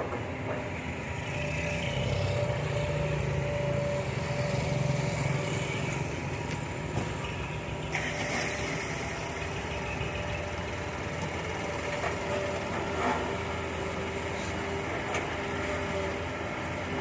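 Hitachi excavator's diesel engine running steadily, its note swelling for a few seconds under load, with a couple of sharp knocks.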